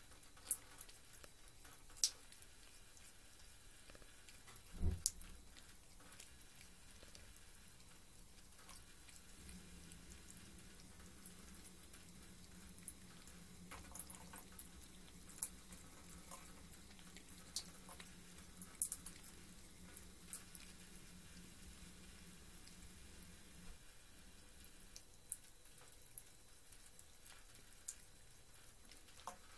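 A thin stream of water trickling from a bathroom tap, with scattered drips and small sharp splashes as a cat paws at the stream. There is a soft thump about five seconds in, and a faint low hum comes in after about ten seconds and stops a few seconds before the end.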